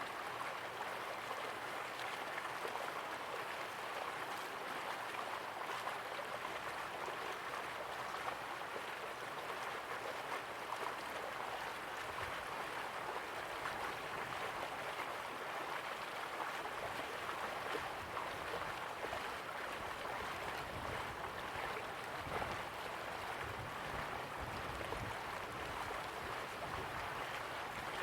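River water flowing and gurgling steadily, a continuous even rush with a faint low rumble in the second half.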